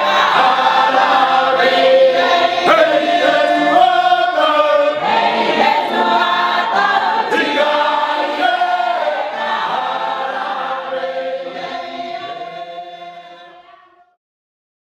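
A group of people singing together, the voices fading out over the last few seconds.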